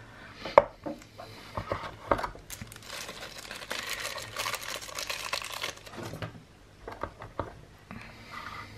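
Plastic packaging crinkling and rustling as it is handled, with a few sharp clicks and taps before and after the rustle.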